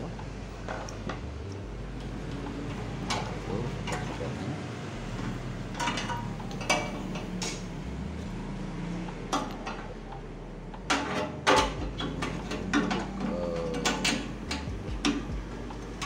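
Intermittent clicks, taps and clatter of sheet-metal and plastic parts being handled and fitted into a microwave oven's cabinet, with a louder run of knocks about two-thirds of the way through.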